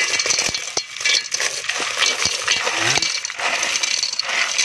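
Small freshwater snails in their shells poured by the handful from a plastic basin into a metal cooking pot: a dense clatter of shells clicking against one another and the pot.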